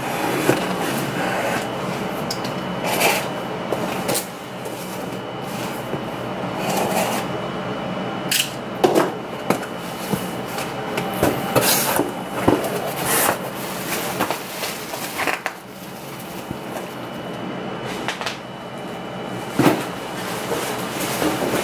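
A shipping package being opened and unpacked by hand: rustling and scraping of the packaging, broken by many irregular knocks and taps as it is handled.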